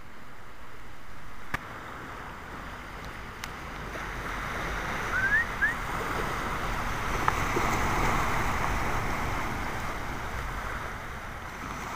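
Small surf washing onto the beach, with wind buffeting the microphone: a steady rushing noise over a low rumble that swells toward the middle and eases near the end. Two short rising chirps come about five seconds in.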